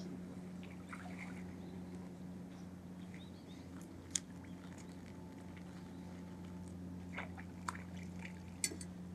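A few small sharp water drips and plops, one about four seconds in and two more near the end, over a steady low hum.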